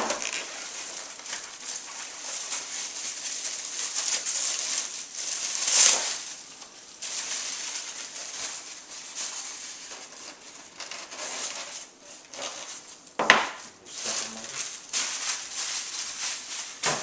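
Plastic wrap crinkling and rustling as it is pulled off a styrofoam packing box, with a louder rustle about six seconds in and a sharp knock about thirteen seconds in.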